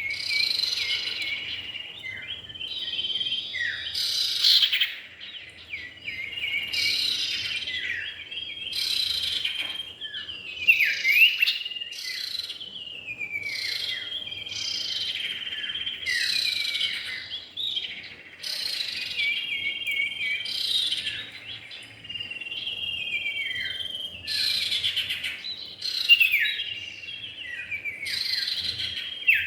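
Common iora (cipow) male and female singing and calling: a busy, unbroken run of sharp chirps and slurred, often falling whistled notes, phrase after phrase every second or two, a lure recording of the species.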